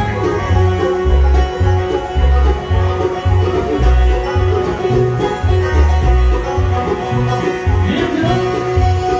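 Bluegrass band playing live: banjo picking over upright bass notes on a steady beat, with guitars.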